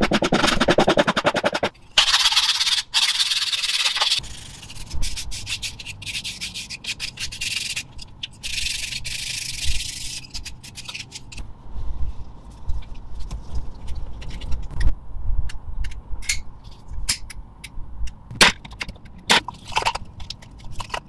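Hand sanding of small wooden slats: rasping strokes of abrasive on wood, heaviest in the first few seconds and again about halfway through. Between and after the sanding come scattered light clicks and knocks of the wooden slats being handled.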